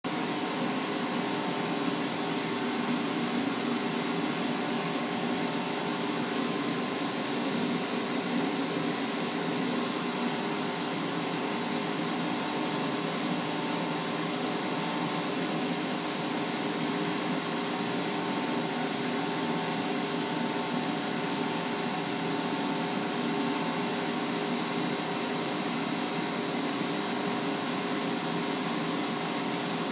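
Laser cutter running an engraving job: a steady mechanical whir and hum with several held tones, as its laser head sweeps back and forth over the work.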